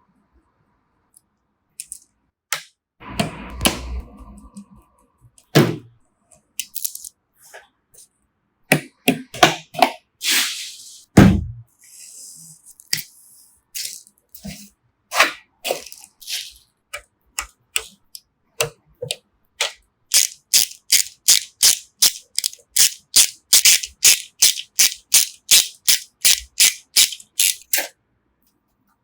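Computer parts being handled and fitted together: scattered clicks, taps and knocks, the loudest about eleven seconds in, then a fast, even run of about four clicks a second for the last eight seconds or so.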